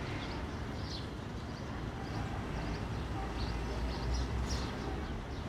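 A ferry's engine running with a low, steady rumble that grows a little louder about three and a half seconds in, while birds chirp and twitter throughout.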